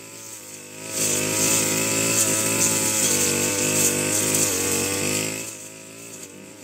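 Brush cutter's small petrol engine throttling up about a second in and running at high speed for about four seconds as it cuts weeds, then dropping back to a lower, quieter running.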